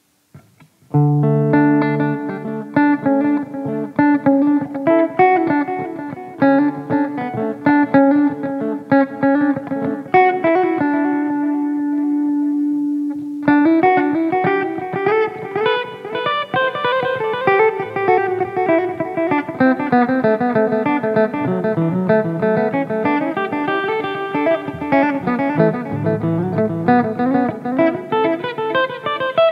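SQOE SEST250 electric guitar played through an M-VAVE Cube Baby portable amp-and-effects unit, picking a lead solo line. It starts about a second in, holds one long note near the middle, then moves into quick runs that climb and fall.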